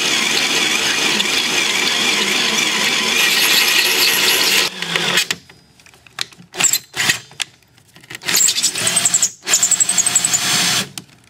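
Cordless battery drill with an 8 mm metal drill bit boring through a steel chainsaw guide bar. It runs steadily for about five seconds, then stops and starts in short bursts, with a steady whine near the end.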